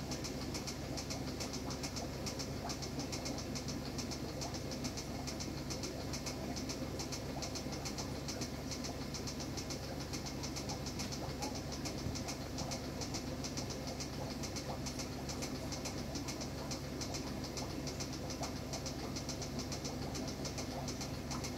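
Aquarium equipment running: a steady low hum under a fast, even crackle that does not change.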